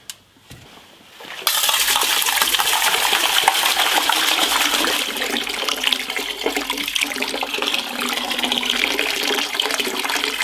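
Liquid pouring and splashing in a steady rushing stream that starts suddenly about a second and a half in, after a single click.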